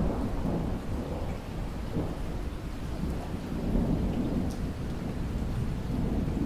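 Rainstorm with rolling thunder: steady rain under a low rumble that swells about halfway through.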